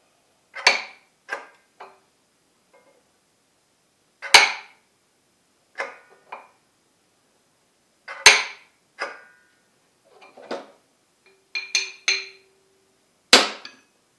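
Sharp metallic clanks and clicks from charging a horseshoe magnet on a 12-volt electromagnet magnet charger. Four loud clanks come about four seconds apart with lighter knocks between them, a few ringing briefly.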